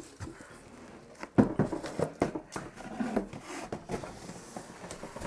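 Packaging being handled: a shrink-wrapped drawer organizer lifted out of a cardboard box of shredded paper filler, with rustling and a series of knocks starting about a second in, the loudest just after.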